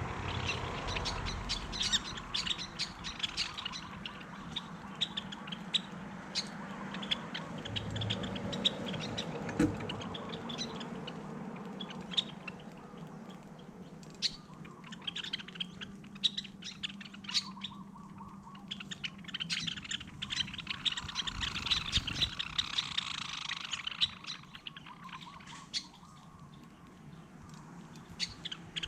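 Small birds chirping and twittering, many short chirps coming in quick, irregular runs throughout.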